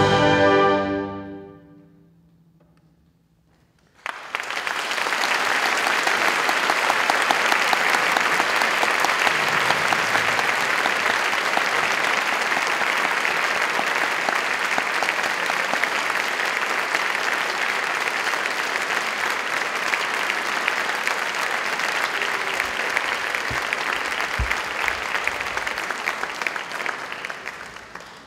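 A concert band's final held chord dies away over the first couple of seconds, then a short silence, then the audience bursts into steady applause that goes on for over twenty seconds and fades near the end.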